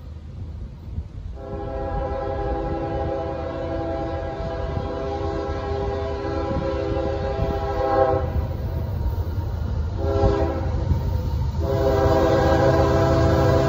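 Air horn of an approaching CSX freight train's lead locomotive, a GE ES40DC, sounding a long blast, then a short one, then another long one beginning near the end. A low rumble of the oncoming train grows louder in the last couple of seconds.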